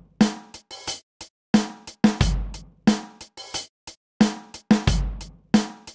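Background music with a steady drum-kit beat: bass drum, snare and hi-hat.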